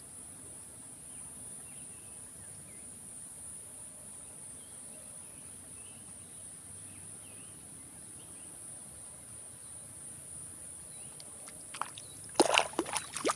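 Insects keep up a steady high-pitched drone in rural outdoor ambience, with a few faint chirps. Near the end comes a quick burst of sharp knocks and rustles, the loudest sound here.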